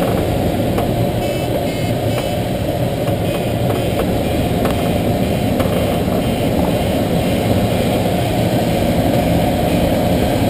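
Steady rushing airflow noise inside the closed cockpit of a Schweizer 1-34 glider in gliding flight, a dense low rumble with no engine.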